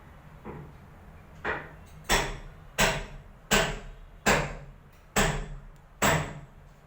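Hammer blows: two light taps, then six hard, evenly spaced strikes about one every 0.8 s, each ringing briefly.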